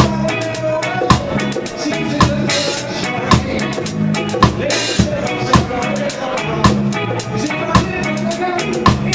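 Reggae band playing live, heard close up from beside the drum kit: drums and cymbals played in a steady groove, a strong accent hit about once a second and a few cymbal crashes, over the band's bass and other instruments.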